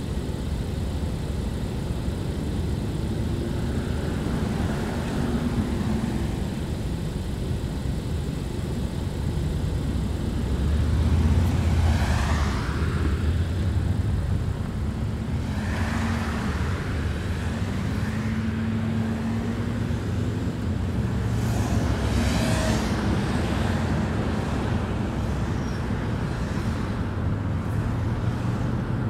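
Steady road and tyre noise from a car driving, with a low drone underneath. Other vehicles swoosh past three times: about twelve seconds in, about sixteen seconds in and about twenty-two seconds in.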